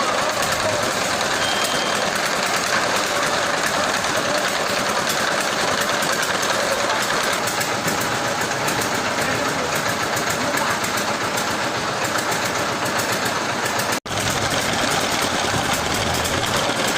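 Engine running steadily, a dense continuous noise of machinery, cut off for an instant about fourteen seconds in.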